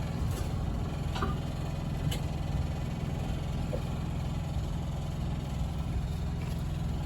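Steady low hum of the ice cream truck running while parked, with a couple of faint clicks about one and two seconds in.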